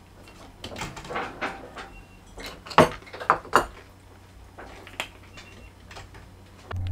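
Spoon clinking and scraping in a bowl: a few light knocks and clicks, the sharpest a cluster about three seconds in, over a faint steady low hum.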